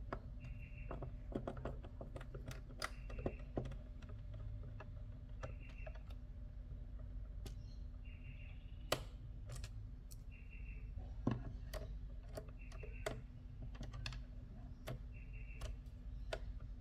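Screwdriver backing small screws out of a plastic instrument-cluster housing: irregular light clicks and taps, with a short rasping sound every second or two as the screws are turned.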